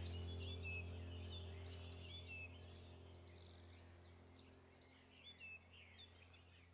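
Small birds chirping in quick, overlapping calls over a steady low hum, the whole fading out gradually.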